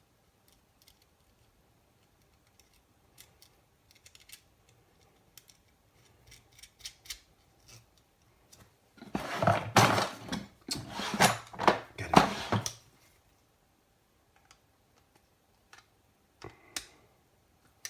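Scattered light clicks from small parts of a soldering-station kit being fitted into its case by hand. About nine seconds in comes a few seconds of loud rustling and clattering handling noise.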